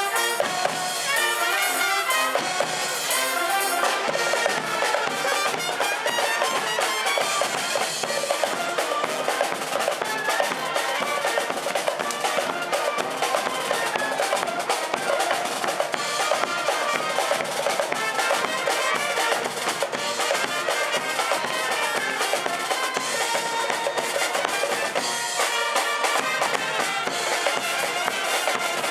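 Live street brass band (banda) playing a tune with trumpets, trombones, clarinets and saxophones over a steady bass drum and cymbal beat.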